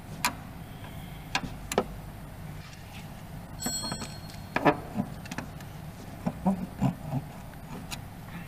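Metal hand tools clicking and knocking against the brake hose fitting and each other as a brake-line wrench is brought to the joint, with one short metallic ring about halfway through. A steady low hum sits underneath.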